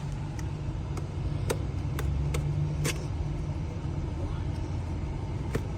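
Steady low rumble with scattered sharp clicks and crinkles as a blind-box toy package is handled and pulled at, hard to open.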